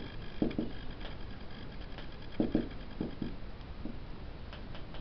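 Marker pen writing on a whiteboard: a few short strokes in small clusters.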